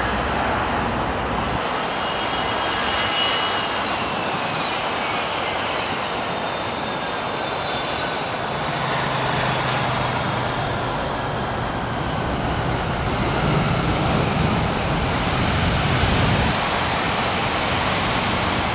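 Boeing 767 twin jet engines on landing: a high turbine whine falls in pitch as the airliner passes low over the runway, over a steady roar that swells for a few seconds after touchdown during the rollout.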